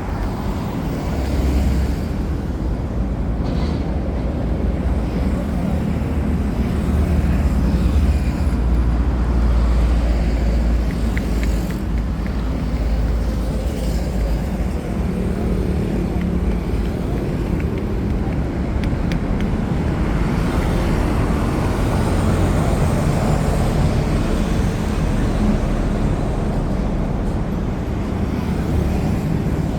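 Street traffic noise: a steady rumble of passing vehicles with no sharp events standing out.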